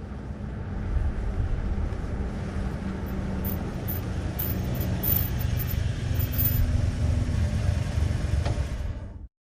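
Old truck's engine running with a dense low rumble and a steady low hum. It grows louder over the first second as the truck approaches, then holds loud before cutting off abruptly near the end.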